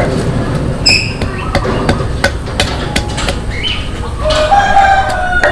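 Wooden pestle pounding in a clay mortar (krok and sak) for som tam, a series of dull knocks about one every half second to second. A short high-pitched chirp sounds about a second in.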